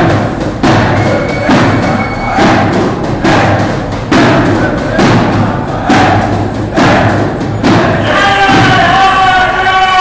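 A drum beaten in a steady marching rhythm, a little under one thump a second, echoing in a road tunnel. About two seconds before the end, a crowd of marchers starts chanting over it.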